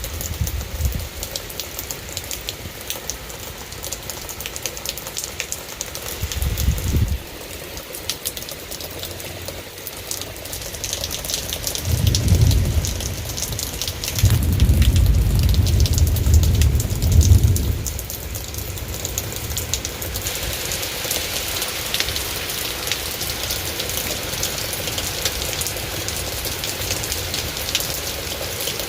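Steady rain falling during a thunderstorm, a constant hiss that grows heavier in the last third. Low rumbles come through briefly about a quarter of the way in, and again for several seconds around the middle.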